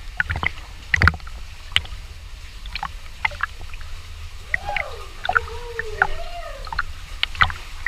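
Legs wading through knee-deep water, with irregular splashes and sloshing every second or so. About halfway through, a wordless voice makes gliding calls that rise and fall for a second and a half.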